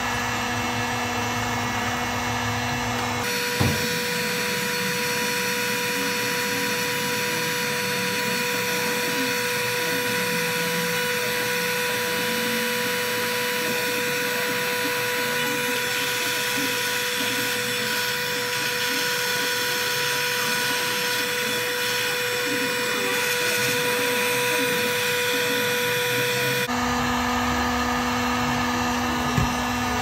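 Electric heat gun blowing hot air steadily over adhesive-lined heat-shrink butt connectors, shrinking and sealing a spliced fuel injector harness. Its hum jumps higher about three seconds in and drops back a few seconds before the end.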